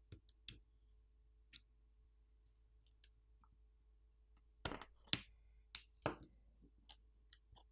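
Faint, scattered clicks and taps of a small pry tool and tweezers against a phone's internal frame and parts as components are worked loose. The clicks come singly at first, with a quick cluster of louder ones a little past halfway.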